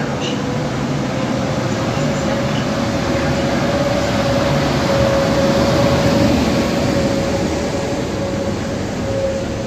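EP09 electric locomotive and its passenger coaches rolling past along the platform: a steady rumble with a thin whine that rises slightly and grows loudest as the locomotive goes by, then eases as the coaches follow.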